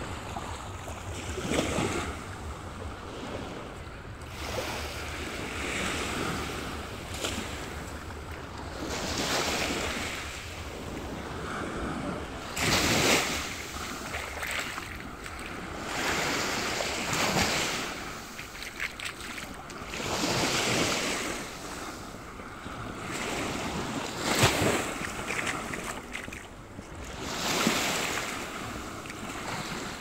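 Small sea waves breaking and washing up the beach, swelling and fading about every three to four seconds, with wind rumbling on the microphone during the first half.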